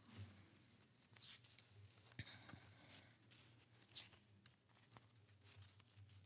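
Near silence: room tone with a faint low hum and a few faint rustles and small clicks.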